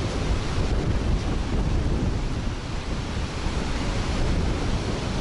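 Strong gusting wind buffeting the microphone, a heavy low rumble with a rushing hiss over it that swells and eases without a break.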